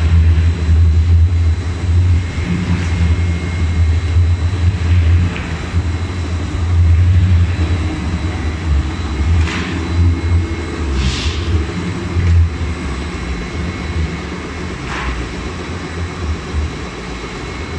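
Veneer rotary peeling lathe running with a loud, steady low motor hum, with a faint whine above it. Three brief swishes come in the second half.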